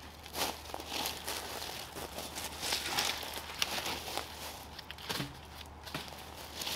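Irregular crackling and rustling of dry leaf litter and twigs, with sharp snaps, as a person walks about and handles a dead branch.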